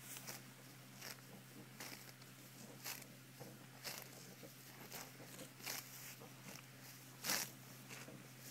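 Cow grazing close up: short rasping rips as it bites and tears off mouthfuls of grass, about one a second, the loudest a little after seven seconds in.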